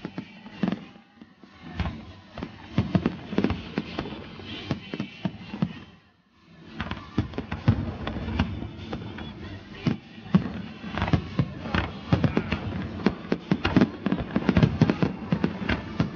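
Aerial fireworks bursting in a fast run of bangs and crackles, dropping to a brief lull about six seconds in, then growing denser with crackling from about eleven seconds on.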